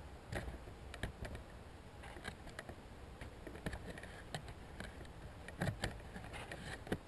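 Faint handling noise from a welding helmet's plastic shell and headgear being moved around: scattered small clicks and rubs over a low steady background.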